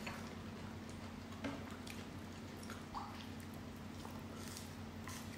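Faint eating sounds: quiet chewing and a few small clicks and crackles of cooked shellfish shell being picked apart by hand, over a low steady hum.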